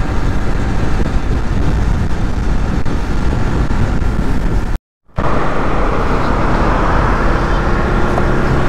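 Wind rushing over an action camera's microphone, with a Bajaj Pulsar NS200 motorcycle's engine and road noise, while riding at speed on a highway. The sound drops out completely for a moment about five seconds in, then carries on a little brighter.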